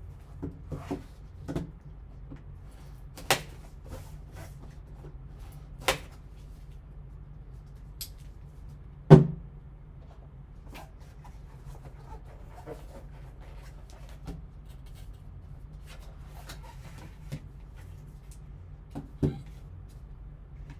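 Cardboard card box and its packaging being handled and opened: scattered sharp clicks, taps and light rustling, with one louder knock about nine seconds in, over a steady low hum.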